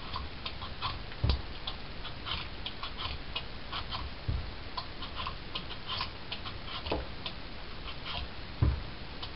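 Vegetable peeler scraping strips of peel off the ridges of an acorn squash in quick, irregular short strokes. A few dull knocks stand out, about a second in, around four seconds in and near the end.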